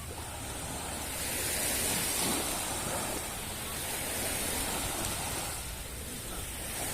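Sea waves washing onto a beach: a steady surf noise that swells about two seconds in and again near the end.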